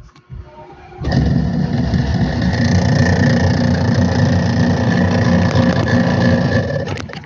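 Mini washing machine's electric motor switching on about a second in and running steadily with a whine, then stopping near the end.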